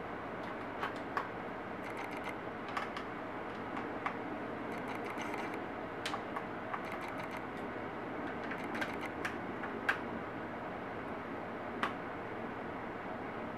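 Small irregular clicks and taps of a screwdriver working screws out of a laptop's plastic bottom case, and of the screws and case being handled, over a steady hiss.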